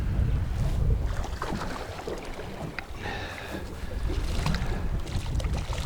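Wind buffeting the microphone in a strong breeze on an open boat, a steady low rumble with faint splashy noise above it.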